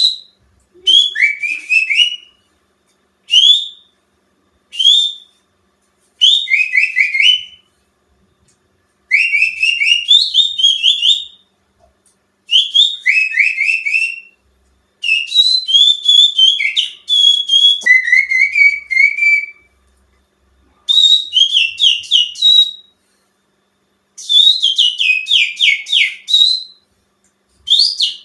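Human finger whistling imitating the song of the greater green leafbird (cucak ijo), a lure call meant to set caged birds singing. It comes as phrases of quick, chattering whistled notes that slide up and down, each phrase one to three seconds long, with short pauses between.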